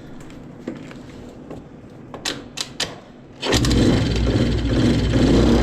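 A Suzuki Choinori 50cc scooter engine catching about three and a half seconds in, after a few sharp clicks, then running steadily. The freshly fitted spark plug has cured its no-start.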